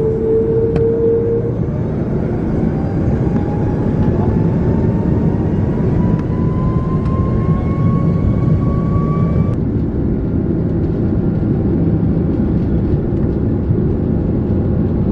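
Airbus A330 jet engines at takeoff power, heard from inside the cabin during the takeoff roll: a steady, loud rumble. A whine over it rises steadily in pitch and stops suddenly about two-thirds of the way through.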